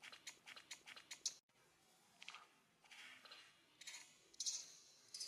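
Faint, quick clicking and scuffing as a monkey and her newborn are dragged and scrambling over a leaf-strewn concrete path: a dense run in the first second and a half, then scattered softer scrapes and clicks.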